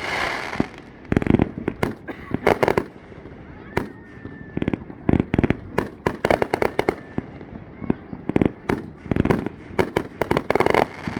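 Fireworks going off: rapid, irregular clusters of sharp bangs and crackles, with a faint whistle about four seconds in.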